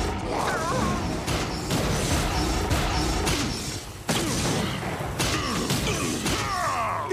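Cartoon battle sound effects: a run of blaster shots and impacts, with an explosion bursting about four seconds in, over a music score.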